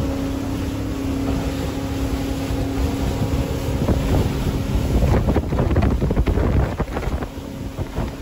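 A boat's twin 150 hp outboard motors run steadily at cruise with an even engine hum. About halfway through, wind buffeting on the microphone grows louder and covers the hum.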